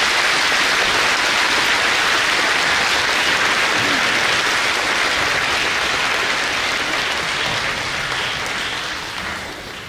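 Audience applauding steadily, dying down near the end.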